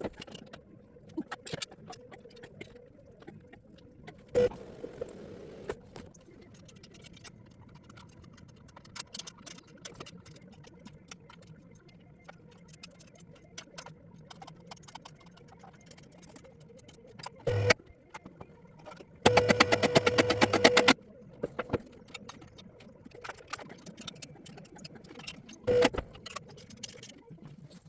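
Tools at work on a car's exhaust extractors: a few sharp metallic knocks, and near the two-thirds mark a loud two-second burst of rapid clicking.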